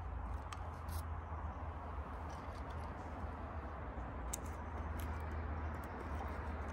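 Steady low outdoor rumble, typical of wind on the microphone, with a few faint sharp clicks and ticks as split pine kindling is handled and set in a steel campfire ring.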